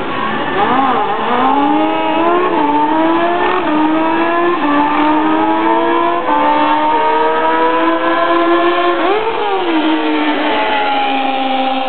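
A drag-racing vehicle's engine at full throttle on a pass down the strip, its pitch climbing and dropping back at each of several gear shifts. About nine seconds in the note wavers, then settles to a steadier, lower pitch as the throttle comes off past the finish.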